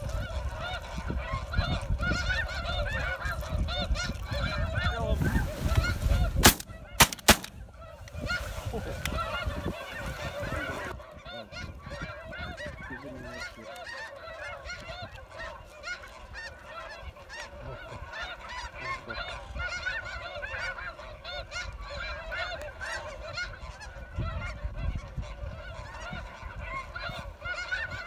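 A flock of snow geese calling, with many overlapping honks going on continuously. Wind rumbles on the microphone for the first several seconds, and there are a few sharp knocks about seven seconds in.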